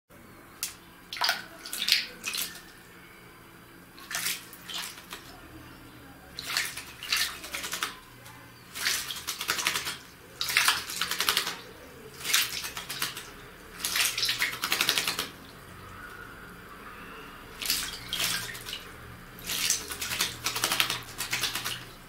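Common blackbird bathing in a shallow plastic tub of water, splashing and fluttering its wings in about ten short bursts of a second or less, with pauses between and a longer pause past the middle.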